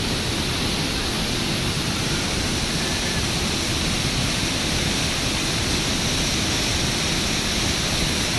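Waterfall: the steady, unbroken noise of falling water, loud and unchanging throughout.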